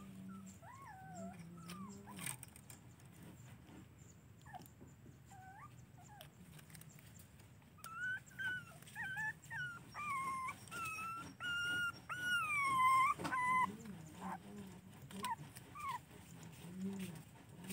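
A puppy whining and whimpering in short, high cries that slide up and down. A few scattered cries come first, then a louder, closer-spaced run of whines about halfway through.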